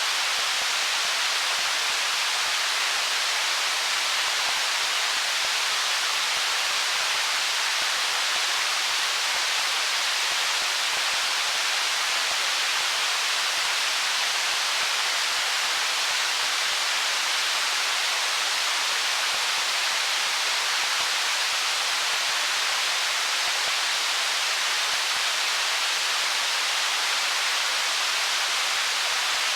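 Flowing stream water running over stones, a constant even hiss with no separate splashes or gurgles.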